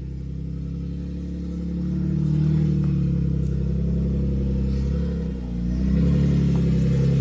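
Jeep Wrangler engine working under load as it crawls up a steep rocky climb, its revs building about two seconds in, easing off briefly after about five seconds, then picking up again.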